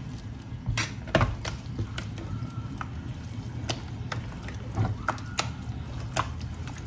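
Wet grated pomtayer mixture being stirred and mixed with soup greens: soft squishing with scattered light clicks and taps, over a low steady hum.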